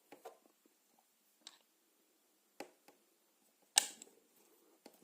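A few scattered light clicks and knocks from handling the reassembled BMX hub, the loudest one about four seconds in.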